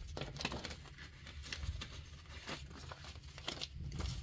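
Stack of paper banknotes being counted by hand: a run of irregular crisp flicks and rustles as the bills are thumbed through one by one.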